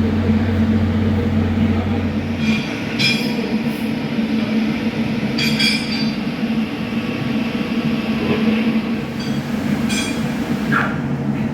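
TIG welding arc running with a steady electrical buzz. Three brief sharper crackles break in.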